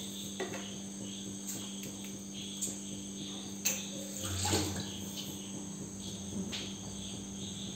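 Steady chirring of crickets over a low steady hum, with a few light clicks and knocks of kitchen utensils and a brief splash-like rustle about four and a half seconds in.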